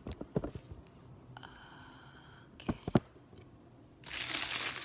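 A few light knocks, a short high squeak, then two sharp knocks. About four seconds in comes loud crinkling of the plastic bag around the steamer's water tank as it is handled.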